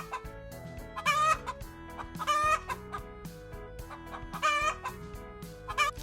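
A chicken calling four times in short, wavering calls about half a second each, over background music.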